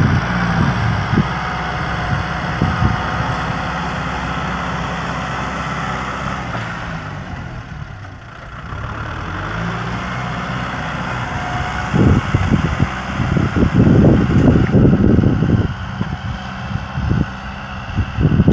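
Kubota M6040SU tractor's four-cylinder diesel engine running steadily while pulling a disc plough through dry ground. About two-thirds of the way through, loud irregular low buffeting noise comes in over the engine.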